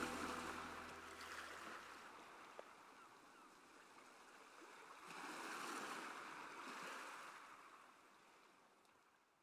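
Faint waves washing on a shore, a noisy wash that swells about five seconds in and fades out, as the last notes of music die away at the start.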